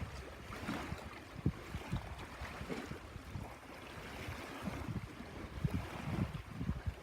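Wind buffeting the microphone: irregular low rumbles and soft thumps over a faint outdoor hiss.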